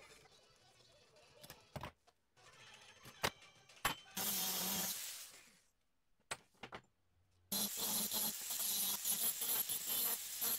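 Handheld angle grinder working steel bar stock. There is a short run about four seconds in that winds down, then a long steady run from about seven and a half seconds on. A few sharp metal knocks come before it.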